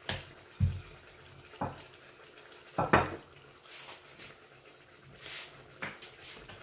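Spinach puri frying in a wok of hot oil, with a quiet background broken by a few sharp pops and knocks; the loudest comes about three seconds in.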